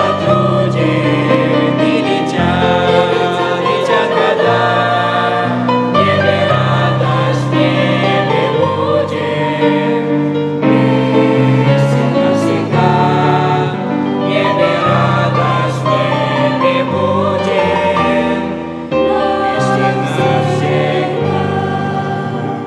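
Choir singing a Christian song with instrumental accompaniment.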